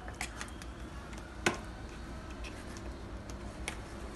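A fork clicking and tapping against a baking dish as soft filling is spread, a few light ticks with one sharper click about a second and a half in.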